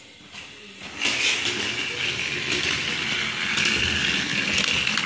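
Two battery-powered TrackMaster toy engines running side by side across a tile floor, their small electric motors and plastic gears making a steady whirring rattle that starts about a second in.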